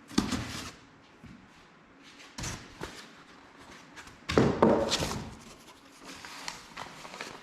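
Fan parts and their packaging being handled during unboxing: rustling and knocks in three bursts, the loudest about four seconds in.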